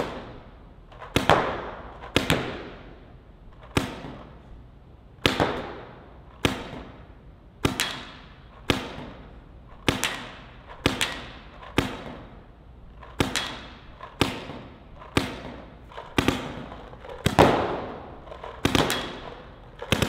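Paintball marker firing single shots, one to two a second at an uneven pace, each shot echoing in a large indoor hall.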